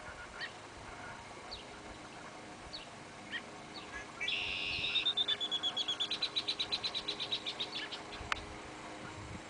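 A small bird calling: short high chirps about once a second, then a loud harsh note about four seconds in that runs into a fast, even, high trill lasting about three seconds. A single sharp click comes near the end.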